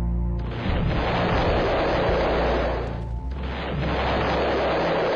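Two explosions, each starting suddenly and carrying on as a long rumble for a couple of seconds. The first comes just under half a second in and the second about three seconds in. Background music with steady low tones plays under them.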